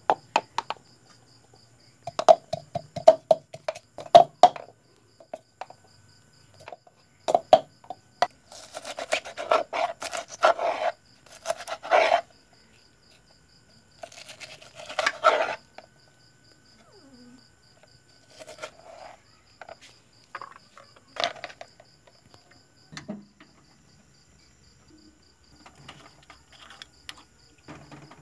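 Repeated knocks of a pestle pounding garlic in a mortar, some strokes ringing, followed by a knife chopping green onions on a cutting board.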